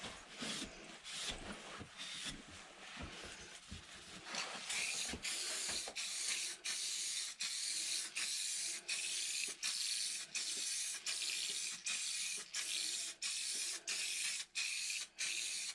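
A cloth rubbing over a wooden board. About four and a half seconds in, an aerosol spray can starts hissing in repeated short bursts, nearly two a second, as a sealer coat is sprayed onto the wood.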